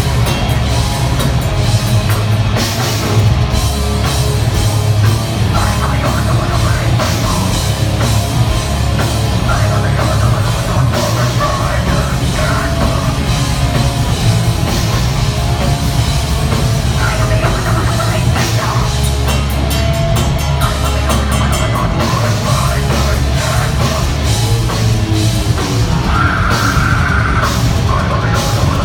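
Heavy metal band playing live, loud and unbroken, with a pounding drum kit.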